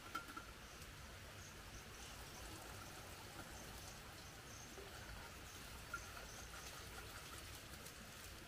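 Faint forest ambience: soft, scattered high chirps, with two light clicks, one just after the start and one about six seconds in.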